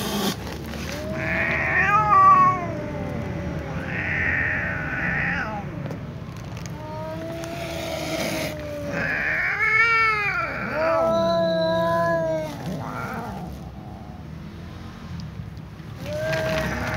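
Cats meowing and yowling: a run of long, drawn-out calls, several arching up and down in pitch, one held steady about eleven seconds in.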